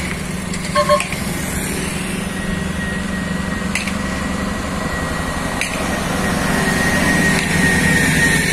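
The V8 diesel of a Scania R580 tractor unit runs as it slowly pulls a heavy multi-axle lowbed trailer past, getting louder as the rig comes alongside. A steady high whine rises over it. A short double horn beep sounds about a second in.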